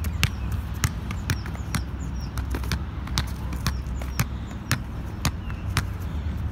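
A red rubber playground ball bounced repeatedly on a tarmac court, dribbled by hand, with sharp slaps at about two bounces a second.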